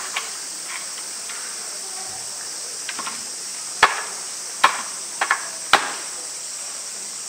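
Upturned plastic bucket knocked against a concrete floor to loosen the ice block frozen inside it: a few faint taps, then about five sharp knocks in the second half. A steady insect drone runs underneath.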